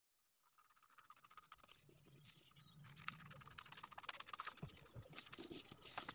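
Scissors snipping through a paper pattern with paper rustling, as a blouse pattern piece is cut out. It is faint at first, then a run of soft snips and crinkles from about three seconds in.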